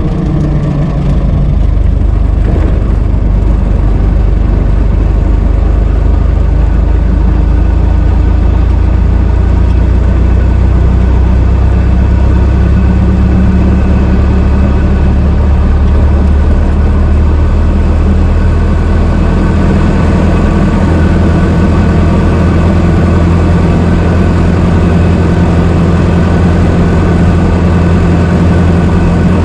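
1926 Ford Model T's four-cylinder side-valve engine running as the car is driven: a steady, loud engine note whose pitch shifts slightly in the first couple of seconds, then holds.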